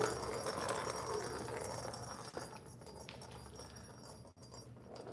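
Faint scuffling and a few light clicks from kittens moving about inside a plastic cat scratcher bowl with a ball track, quietening over the seconds.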